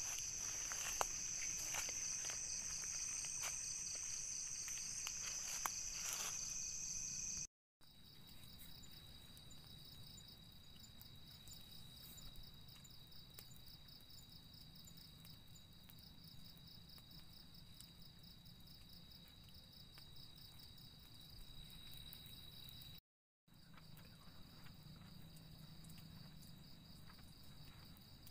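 Night-time insect chorus of crickets, a steady high chirring. For the first seven seconds or so it is loud, with footsteps rustling through grass; after a cut it is quieter, an evenly pulsing high trill.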